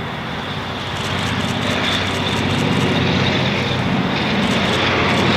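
Airliner engines running with a deep rumble and a hiss, growing steadily louder from about a second in.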